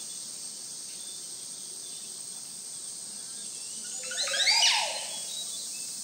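Steady high insect drone of the rainforest, with a loud squealing call about four seconds in that climbs in quick steps and then sweeps down in pitch.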